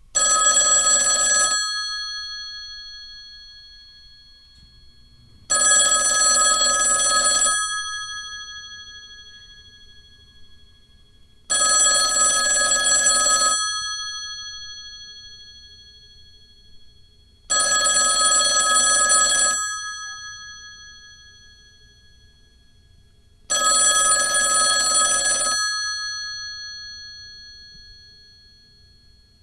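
Old telephone's bell ringing: five rings of about two seconds each, spaced about six seconds apart, with the bell tone fading away slowly after each ring.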